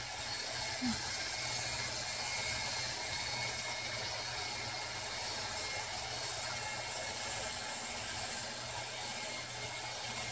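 Electric return winch of a backyard zipline, driven by a Craftsman power tool, running steadily with a constant low hum as it hauls the trolley back along the cable.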